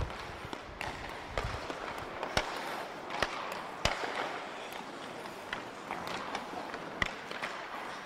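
Hockey pucks clacking sharply off stick blades at irregular intervals during a one-touch passing drill, over a steady scraping hiss of skates on ice.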